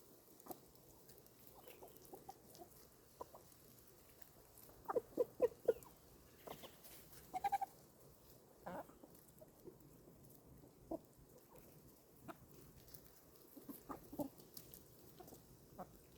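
Chickens clucking in short, scattered calls, with a quick run of four or five clucks about five seconds in.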